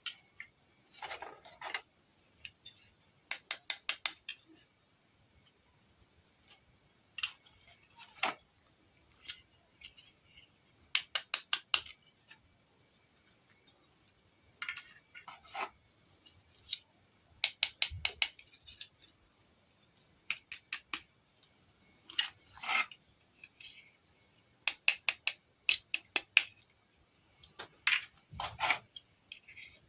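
Small hard plastic toy pieces being handled: bursts of quick, sharp clicks, five to eight in a row, alternating with short scrapes and rubs.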